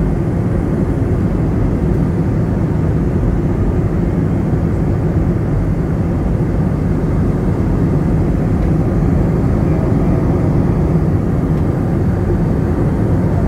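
Cabin noise of an Airbus A320-family airliner in cruise: a steady low roar of jet engines and airflow, heard from a window seat, unchanging throughout.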